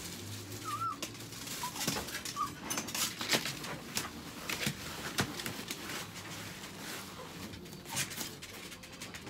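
Rustling and crinkling of a used dog pee pad being picked up and handled, with many sharp clicks and taps. A few short high whines from a small dog come in the first couple of seconds.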